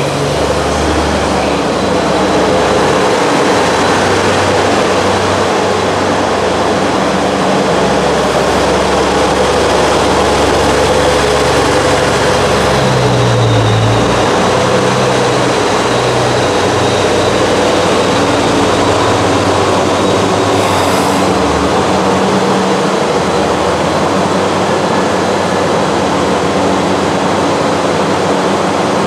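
JR Central HC85 series hybrid diesel train pulling slowly past along the platform, its engine running under a steady, loud rumble of wheels and running gear.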